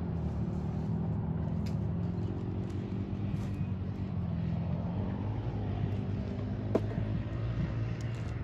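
Steady low drone of a motor, with one sharp click about seven seconds in.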